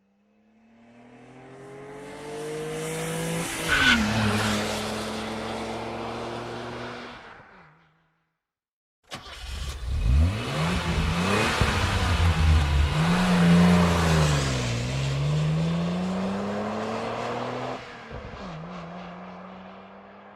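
Two car engine sound effects. In the first, the engine note climbs steadily, drops sharply about four seconds in and fades away. After a second of silence, a second car engine starts abruptly and revs up and down several times before falling off and fading out.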